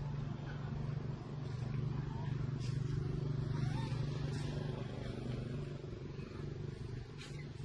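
Engine running with a steady low hum that grows louder over the first few seconds and eases off in the second half.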